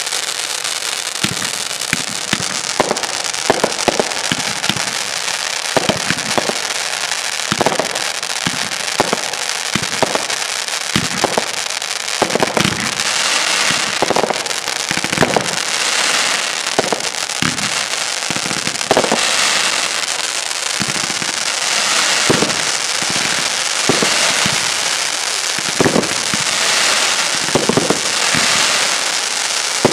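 Fireworks display: shells bursting in a quick series of sharp bangs over a steady crackling hiss, the crackle swelling into denser stretches in the second half.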